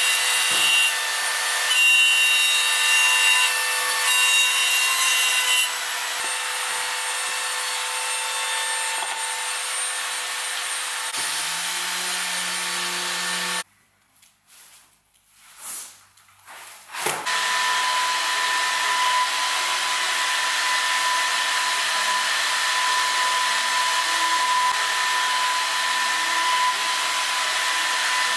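CNC router spindle running and cutting a groove in wood with a small end mill, a steady machining noise with a steady whine, which cuts off suddenly about halfway through. After a few near-quiet seconds with faint knocks, a different steady whirring machine noise with a steady whine starts and runs on.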